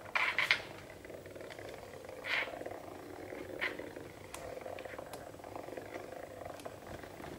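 Hexbug Nano vibrating toy bug running on a hardwood floor: a steady low buzzing rattle, with sharp ticks and taps now and then, the loudest cluster right at the start.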